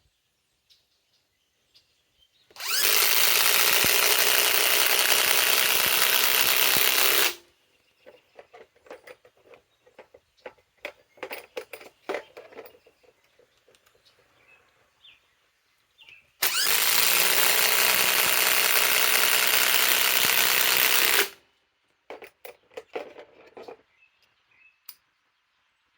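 Ridgid half-inch subcompact impact wrench hammering 4-inch TimberLOK screws into timber in two runs of about five seconds each. Between the runs come scattered clicks and knocks.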